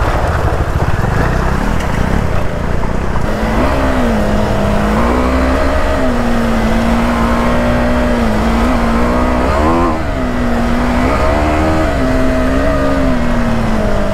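Motorcycle engine running under way with low wind and road rumble; from about three seconds in the engine note holds steady, then rises and falls with the throttle several times, the biggest rise about ten seconds in.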